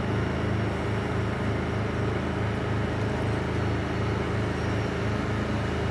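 A 6,000 BTU window air conditioner running steadily, its hum mixed with the portable generator powering it. The low hum pulses in a slow beat about twice a second.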